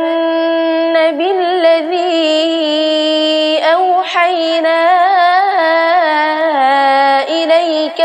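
Quran recitation in melodic tajweed style by a young reciter in Arabic, one high voice holding long ornamented vowels with rising and falling turns, and a brief break about three and a half seconds in.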